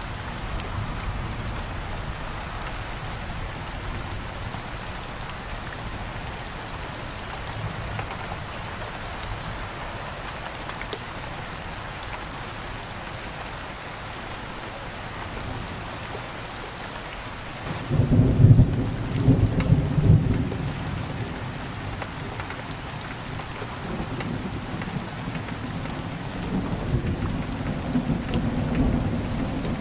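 Heavy rain falling on a window pane, a steady hiss. About 18 seconds in, a loud low rumble of thunder lasts a couple of seconds, and fainter rumbling comes back near the end.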